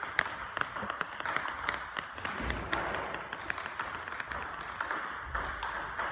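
Table tennis multiball drill: a quick, steady stream of celluloid-plastic ball clicks as balls are fed, bounce on the table and are struck back with paddles. Two dull low thumps come about halfway and near the end.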